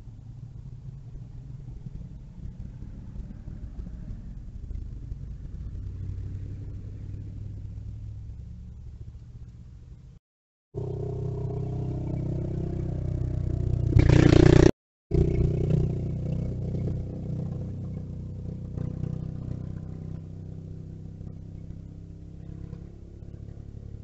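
Small engine of a mini bike running and revving as it rides along the street, growing louder to a peak about two-thirds of the way through, then fading away. The sound cuts out completely twice for a split second, and it is picked up by a security camera's microphone.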